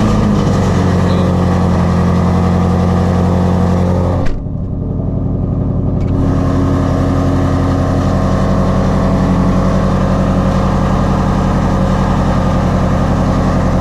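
Ford Shelby GT350's 5.2-litre flat-plane-crank V8 with long-tube headers and a straight-pipe exhaust, idling loud and steady just after a cold start. Its sound dips briefly about four seconds in.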